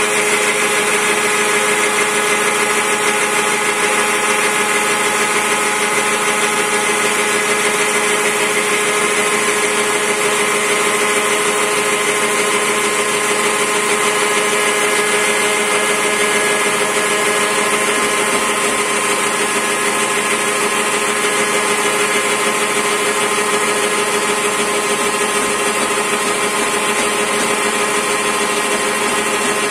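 Homemade CNC machine milling a wooden blank into a sphere: the spindle spins a 6 mm two-flute flat-end mill against the rotating wood, a steady whine of several tones over an even cutting hiss.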